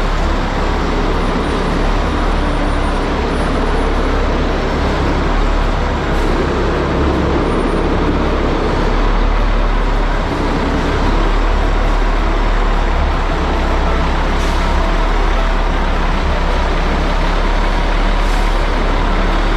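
Caterpillar 627G scraper's diesel engine running steadily, a loud continuous rumble.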